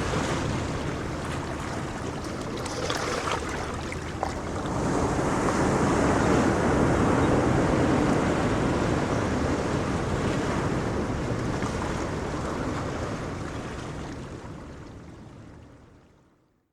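Ocean waves, a steady rush that swells about five seconds in, then fades out to silence near the end.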